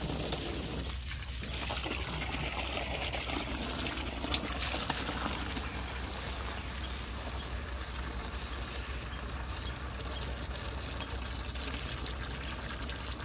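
Water from a hose pouring steadily into a shallow plastic kiddie pool, a continuous splashing rush, with a brief click about four seconds in.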